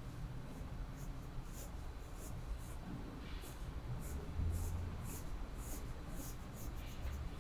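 Red pencil sketching on sketchbook paper: a series of short, scratchy strokes at an irregular pace, over a faint low hum.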